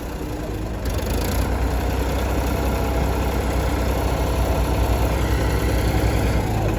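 Heavy diesel engine running steadily, getting a little louder about a second in.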